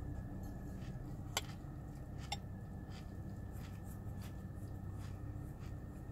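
Faint chewing of a mouthful of Cocoa Pebbles cereal in milk, with soft crunches and two small clicks, about one and a half and a little over two seconds in, over a steady low hum inside a car's cabin.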